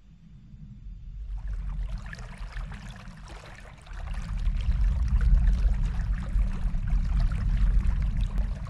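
Running water, an even rushing and trickling that fades in about a second in, over a deep low rumble that grows louder about four seconds in.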